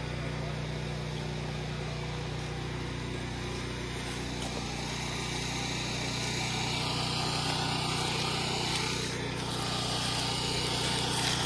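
Mini excavator's diesel engine running steadily at a constant speed.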